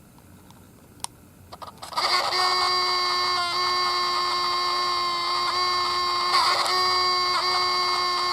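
Sony RX100 compact camera making a steady, pitched buzzing whine of several tones together, starting about two seconds in after a few faint clicks: the unpleasant vibration noise the camera had developed as a fault.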